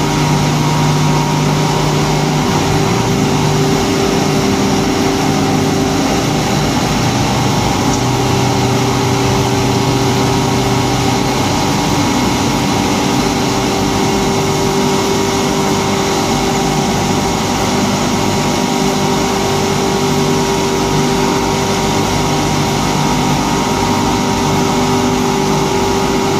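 Paper tube sanding and waxing machine running steadily, its electric motors and dust-collector blowers making a dense, continuous machine noise with a few held humming tones. A low hum drops out about eleven seconds in.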